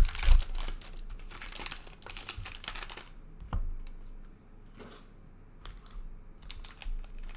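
Rapid clicks and rustles of trading cards and their foil packs being handled and sorted. They are busiest in the first three seconds, then thin out to a few scattered clicks.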